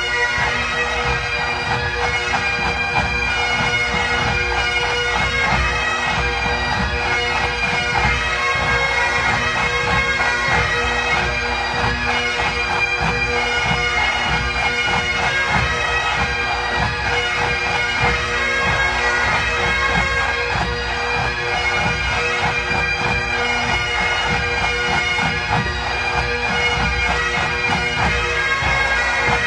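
A massed band of Great Highland bagpipes, hundreds of sets playing together: steady drones under the chanters' tune, held without a break.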